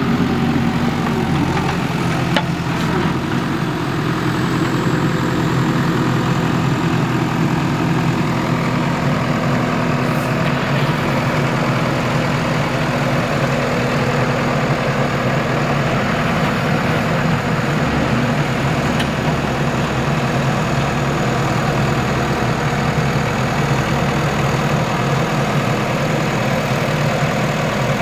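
Heavy diesel engine of construction machinery running steadily at a fairly constant speed, without clear revving.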